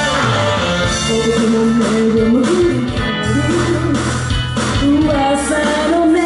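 Loud rock song with guitar, and a woman singing a melody into a microphone over it.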